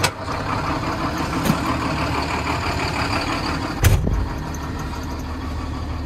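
JCB tractor engine running steadily, heard from inside the cab. A single heavy thump comes about four seconds in, after which the engine sounds a little quieter.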